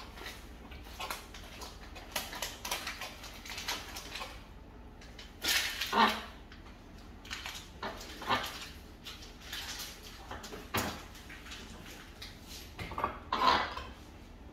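A kitchen knife clicking and tapping against a plate as vegetables are cut, with two louder short sounds, one about six seconds in and one near the end.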